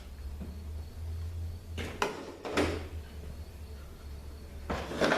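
Transmission parts knocking and clinking against a THM-350 case as the low-reverse clutch pack is lifted out: a knock about two seconds in, another shortly after, and a louder one near the end, over a steady low hum.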